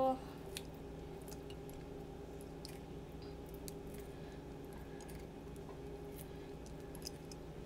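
Kitchen scissors snipping cooked lobster meat into small pieces: faint, soft, scattered snips over a steady low hum.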